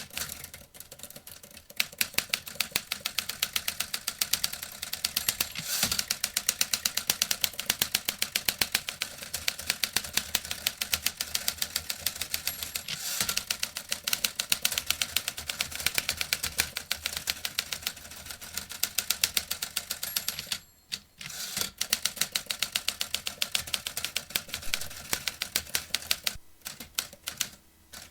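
Vintage typewriter being typed on: a fast, steady run of keystroke clacks, with a couple of heavier clunks and a short pause about three-quarters of the way through.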